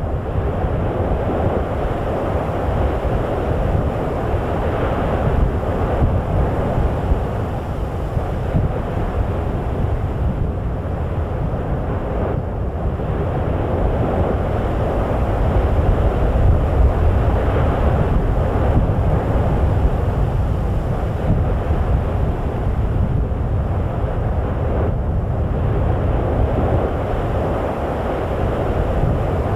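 Wind buffeting the microphone: a steady, loud rushing with a deep, irregular low rumble.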